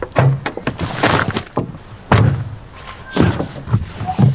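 A series of solid thunks from a BMW M2 Competition's boot lid and driver's door being opened and shut as a bag is loaded, about five knocks roughly a second apart.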